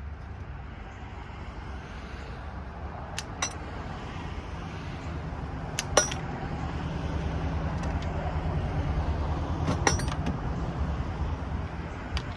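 A low, steady rumble that swells towards the middle, with a few sharp clinks of small metal scrap parts being handled.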